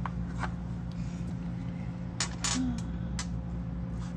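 A steady low room hum runs throughout, with a few short, light clicks and rustles, the loudest about two and a half seconds in.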